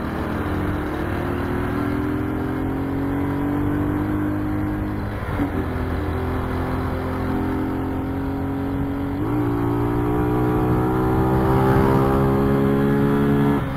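Honda Fan 125's single-cylinder four-stroke engine running under way as the motorcycle accelerates, its pitch climbing slowly. The pitch breaks about five and nine seconds in at gear changes, and the engine runs a little louder near the end.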